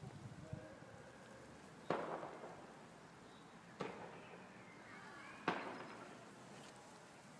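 Three sharp bangs, a little under two seconds apart, each trailing off in an echo.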